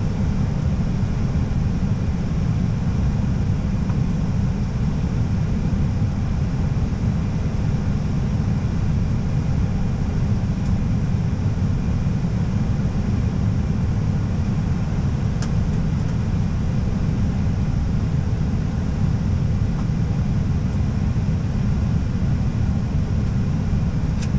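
Steady low rumble of airflow and engine noise in an Airbus A320's cockpit on approach, with a few faint clicks.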